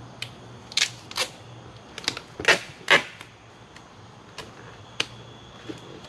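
Irregular sharp clicks and knocks from hands working on a foam-filled archery target box, the loudest two about two and a half and three seconds in, with fainter ticks after. A faint steady high tone starts about five seconds in.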